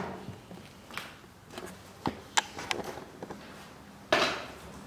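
Footsteps on a broken wooden parquet floor: a few sharp clicks and knocks from loose parquet blocks underfoot, and a louder scuff about four seconds in.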